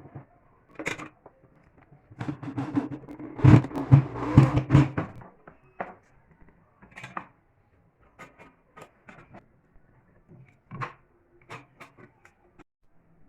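Scattered knocks and clicks of wooden parts being handled and set down, with a busier, louder stretch of knocking and rubbing from about two to five seconds in.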